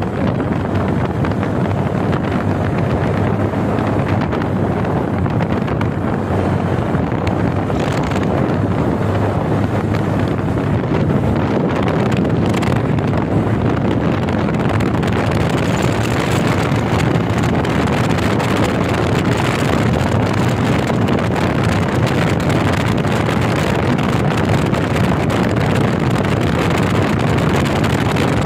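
Steady rush of wind on the microphone over the running of a Bajaj Platina's single-cylinder engine, cruising at road speed.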